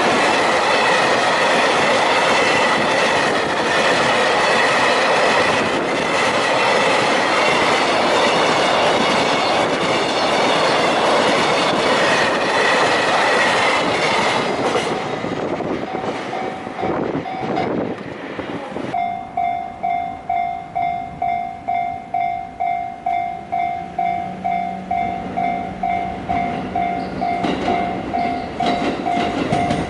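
A train passes the level crossing at speed: a loud, dense rush of wheels on rail with a steady high whine, fading away after about fifteen seconds. The level-crossing warning bell then rings on clearly, about two dings a second, while the noise of another train builds near the end.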